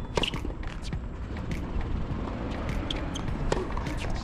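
Tennis practice: racquets striking tennis balls and balls bouncing on a hard court, an irregular run of sharp pops and knocks.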